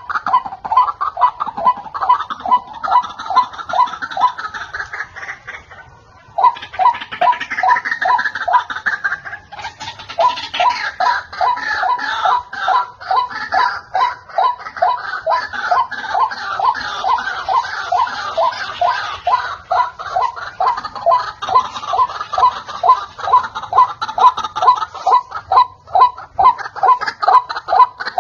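White-breasted waterhen (ruak-ruak) calling: a long run of rapid repeated notes, about four a second, that breaks off briefly about six seconds in and then starts again. It is a recorded call played as a lure for the bird.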